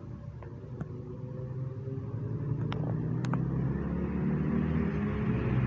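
A vehicle engine growing steadily louder as it approaches, its pitch edging up, with a couple of sharp clicks about three seconds in.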